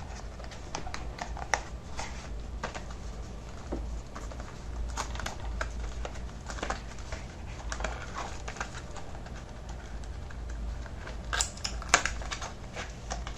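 Scattered light clicks, taps and short rustles of a small product box being unpacked: cardboard and paper packaging handled while the contents are taken out. A steady low hum runs underneath.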